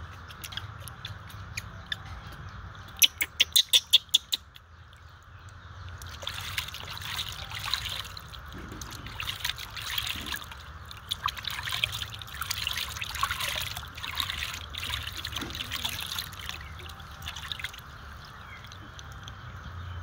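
A quick run of about seven loud, sharp clicks about three seconds in. Then, from about six seconds, water splashing and trickling in a plastic basin as a baby monkey is washed by hand, which stops shortly before the end.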